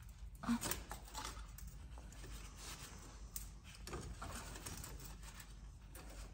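Faint, scattered clicks, taps and scrapes of gloved hands working at an oil filter and its fittings.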